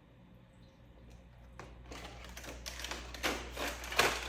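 Objects being handled and put away: irregular taps, knocks and shuffling that start about a second and a half in, with two louder knocks near the end.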